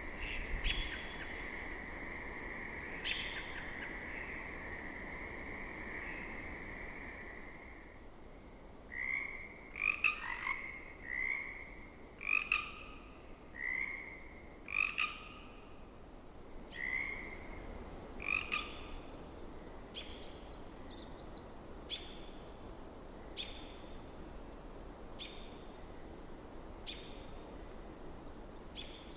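Pacific chorus frogs calling back and forth: about ten separate two-part ribbits in the middle. Before them a steady chorus with a few sharp chirps over it; near the end single sharp American robin chirps every second or two.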